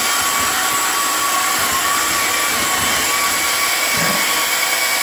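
Electric motor driving a robot's ball singulator rollers, running with a steady whine, with a few soft low thumps as foam balls are pushed through the rollers.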